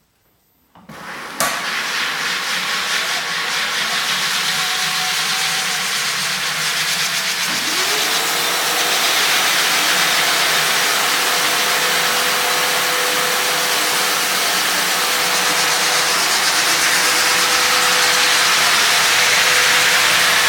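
Frank Spider floor sander with 36-grit zirconia abrasive starting up about a second in, then running steadily, grinding glue and coatings off a timber floor. A whine rises in pitch about a third of the way through and holds steady.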